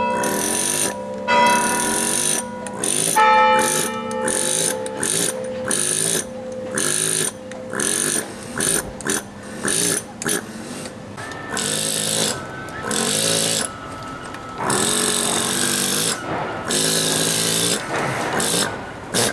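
Pneumatic carving hammer driving a chisel into stone in repeated short bursts, each about half a second to a second long, with a buzzing hammering that rises and falls in pitch as the tool starts and stops.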